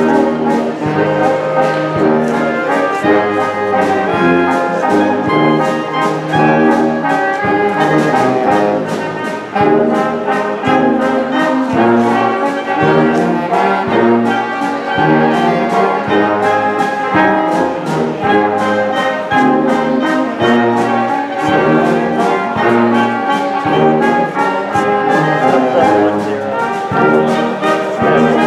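Small live band of trombone, trumpets, saxophone, clarinets and tuba playing a tune, with a tuba bass line moving under the melody.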